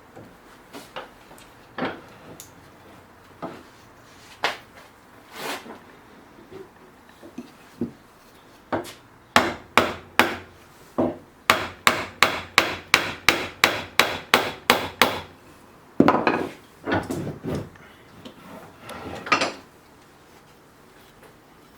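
Hammer blows on wood: a few scattered knocks, then a quick, even run of about fifteen strikes at two to three a second, then a few longer, scraping knocks near the end.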